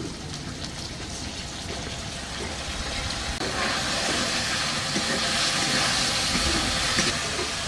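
Onions and capsicum sizzling in hot oil in a steel wok as tomato sauce is stirred in, with small scrapes of a metal ladle against the pan. The sizzle grows louder from about halfway.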